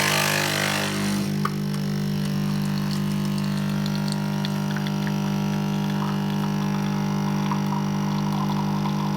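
Nespresso Creatista Plus pump buzzing steadily as it forces water through a coffee capsule to brew espresso, with a hiss in the first second or so as brewing begins.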